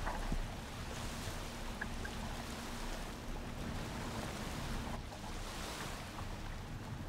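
Water splashing and lapping against a kayak as it is paddled, swelling with the paddle strokes about a second in and again later.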